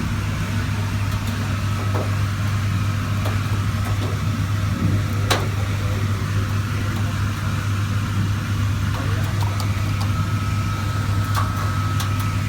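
Refrigerator compressor running with a steady low hum, working again after repair, with a few faint clicks over it, the clearest about five seconds in.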